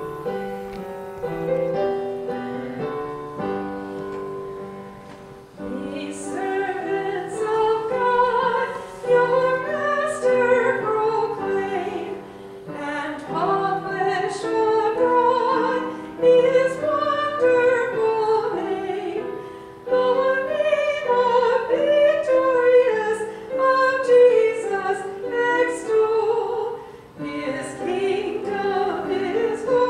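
Church music: a few seconds of keyboard introduction, then a solo singer with vibrato over keyboard accompaniment.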